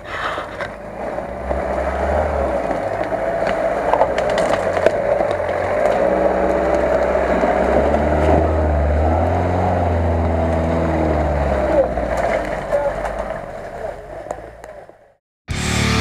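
Asia Rocsta 4x4's engine running as it drives through mud on a forest track and passes close by, the engine pitch rising and falling in the middle, then fading out. Rock music starts abruptly near the end.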